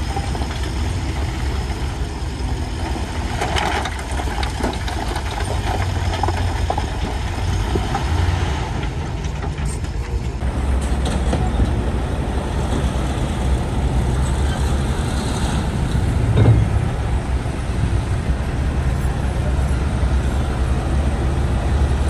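Bulldozer's diesel engine running steadily with a low rumble, with a few short knocks or clanks from the machine at work.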